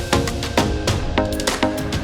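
Background music with a steady, fast percussive beat and pitched notes.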